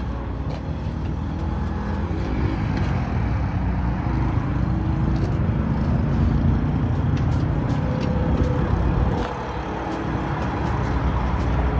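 Steady low rumble of an idling truck engine, with a few faint clicks over it.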